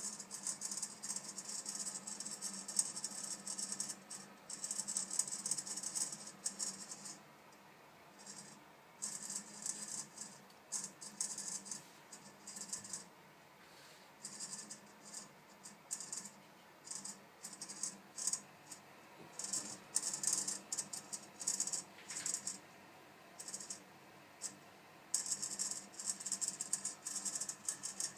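Vitodens 200 gas condensing boiler making a high-pitched rattling noise over a low steady hum. The rattle runs continuously for the first several seconds, then comes in short irregular bursts, and runs continuously again near the end. This is the odd noise it makes when the water is above 50 °C.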